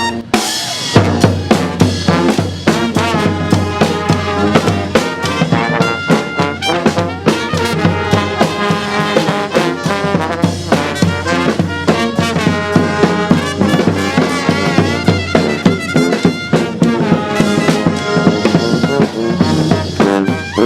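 Street brass band playing loud, with brass horns over drums: bass drum and snare keep a steady beat.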